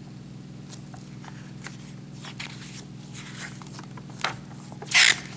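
Paper pages of a printed pattern booklet rustling and flipping as it is handled, in scattered short crisp sounds, with the loudest page-turn swish near the end. A steady low hum runs underneath.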